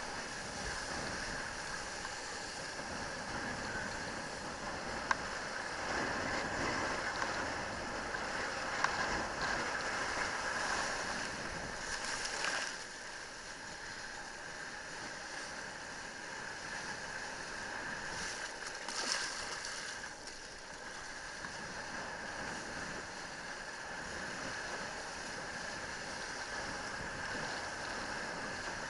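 Steady rush of wind and water against a helmet camera as a kitesurfer rides across choppy water, with a couple of brief louder surges of spray.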